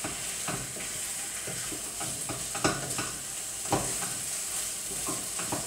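Chicken pieces and curry paste sizzling in a hot wok as a spatula stirs them, with several sharp scrapes of the spatula against the pan, the loudest about two and a half and three and a half seconds in.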